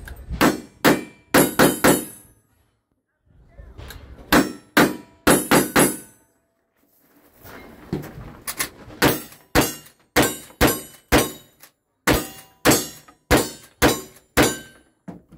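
A string of about two dozen gunshots from revolvers and a lever-action rifle, fired in quick runs with two short pauses, the steel plate targets ringing after the hits.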